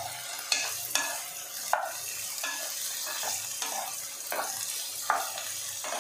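Cut vegetables (potato, cauliflower, onion) sizzling in a nonstick kadai while a wooden spatula stirs them, with irregular scrapes and taps of the spatula against the pan over a steady sizzle.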